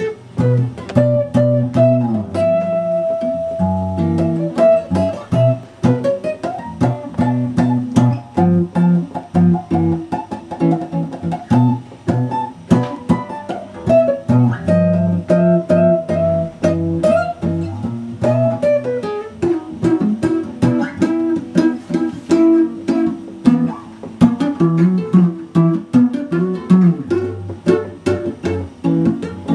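Solo guitar playing chords and a lead melody at the same time: low notes and chords sound under a higher single-note line, with some notes sliding in pitch.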